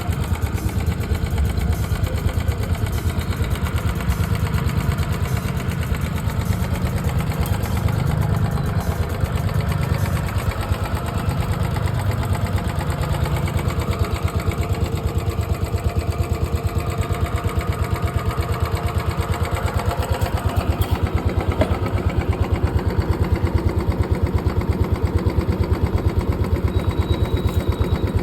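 Royal Enfield Bullet 350's single-cylinder four-stroke engine idling with a steady, even beat, getting a little louder after about twenty seconds.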